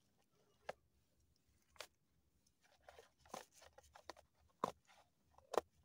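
Plastic lunch boxes being handled and their snap-on lids opened, with a plastic carrier bag crinkling: a handful of sharp, separate clicks and light crackling, faint overall.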